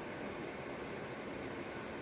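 Lasko FHV820 tower fan-heater running on high in heater mode: its blower gives a steady, even rush of air.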